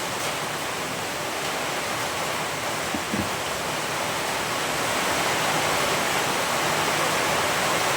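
Heavy rain falling on the roof, a steady hiss that grows a little louder about halfway through.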